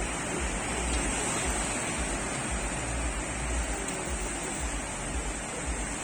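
Sea waves breaking and washing ashore in a steady surf, with a low rumble that comes and goes underneath.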